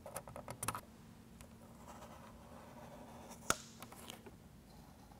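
Marker pen on a truck grille, drawing short marks against a card straight edge: a cluster of light clicks and scratches in the first second, then one sharp click about three and a half seconds in.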